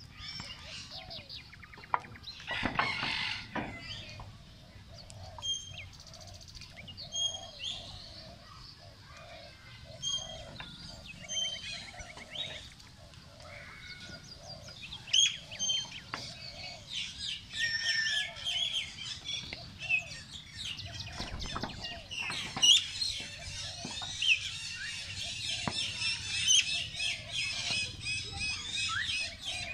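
Mixed bird chorus: many small birds chirping and twittering, growing busier in the second half, with a lower call repeating steadily through the first half and a brief rustling burst about three seconds in.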